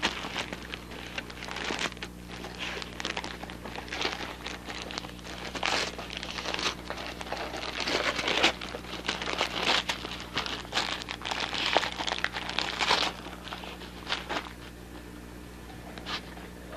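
Dog tearing and crinkling gift wrapping paper with its teeth while ripping open a present, in irregular bursts that die down for the last couple of seconds.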